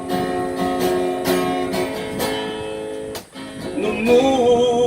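Acoustic guitar strummed in a slow ballad rhythm between sung lines, with a brief drop-out a little past the middle. A male voice comes back in with a held note near the end.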